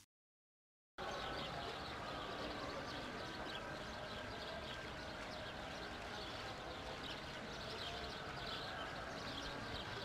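Outdoor ambience of many small birds chirping busily over a steady background hum, starting suddenly about a second in after silence.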